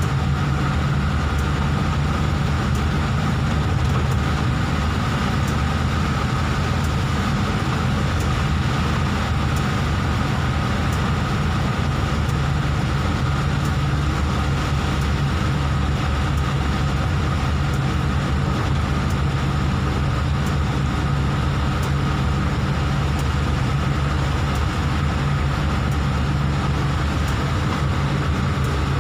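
Steady car-cabin noise while driving in heavy rain: a low engine hum, tyres on the wet road and rain hitting the windscreen.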